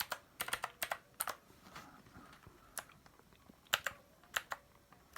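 Keys pressed on a cheap all-plastic 60% mechanical keyboard, sharp clacks coming singly and in small quick clusters with pauses between them: a test of how the switches sound.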